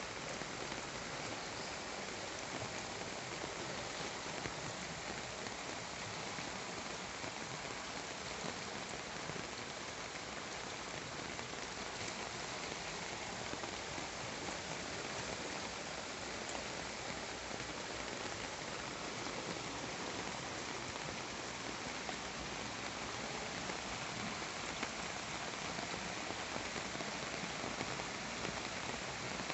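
Steady rain falling: an even, unbroken hiss of drops that does not change.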